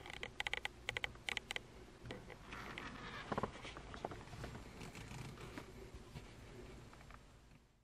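Faint clicks and rustling from a handheld camera being moved around inside a car cabin, with a sharper click about three and a half seconds in; the sound fades out near the end.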